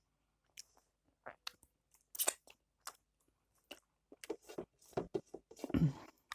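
Close-up eating sounds: scattered chewing, crunching and wet mouth clicks. They come more often in the second half, with a louder, deeper crunch near the end.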